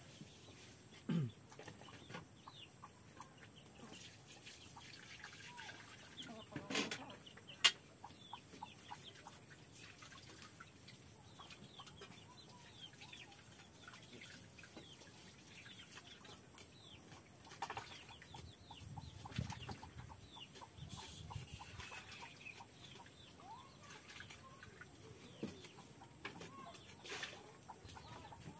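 Chickens clucking, with a few sharp knocks, the loudest about eight seconds in.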